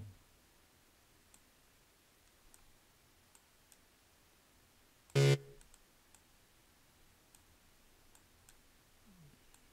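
One short, low synth note about five seconds in: a C sounded by FL Studio's GMS synth as the note is placed in the piano roll. Around it, faint scattered mouse clicks over a quiet background.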